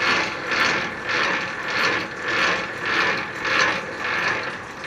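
Semi-trailer landing gear being hand-cranked in high-speed gear to raise the legs: a repeating gear-and-ratchet rasp from the crank and gearbox, about twice a second, one per turn of the handle.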